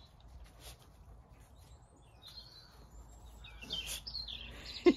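Quiet farmyard ambience with wild birds chirping faintly. The chirps come mostly in the second half. A short sharp sound comes right at the end.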